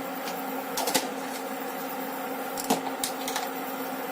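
Cumin seeds sizzling in hot oil in a kadhai, with a few sharp pops and crackles over a steady hum.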